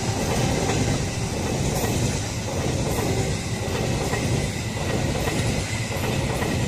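Express passenger train's stainless-steel executive coaches running past at speed close by: a steady rush and rumble of wheels on rail, with faint clacks as the wheels cross rail joints.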